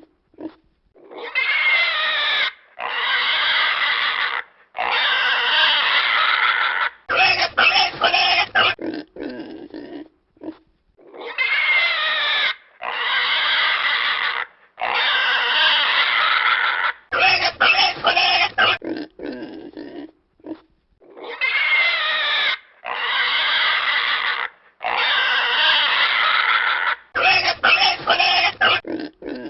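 Pigs squealing: three long, high, wavering squeals followed by a run of short, rapid grunts. The same sequence repeats about every ten seconds, three times over.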